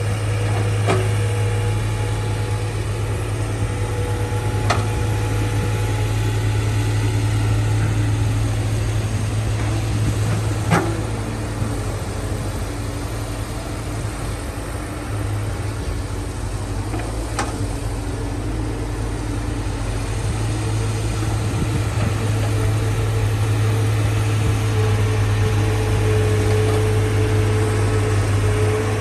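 Heavy diesel engine of earthmoving machinery running steadily with a deep hum, with a few sharp knocks spread through.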